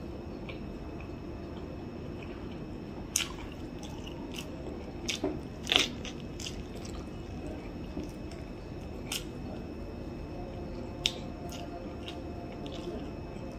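Biting kernels off an ear of corn on the cob and chewing them close to the microphone: a handful of sharp, crisp bite clicks, the loudest near the middle, over a steady low background hum.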